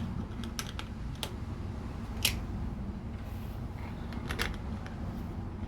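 LEGO plastic pieces being handled and pressed together: a handful of scattered sharp clicks, the loudest about two seconds in, over a low steady hum.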